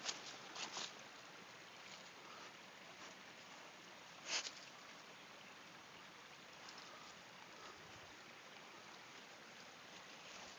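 A dog moving through dry leaves and brush: faint rustling over a steady low hiss, with a few brief sharp crackles of twigs and leaves, the loudest about four seconds in.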